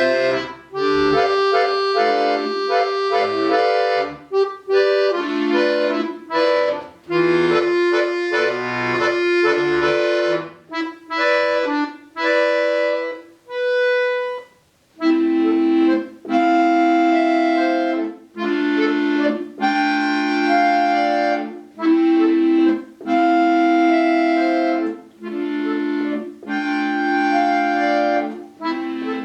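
Solo accordion playing: quick running passages, then a brief pause with a single held note about halfway through, followed by repeated full sustained chords.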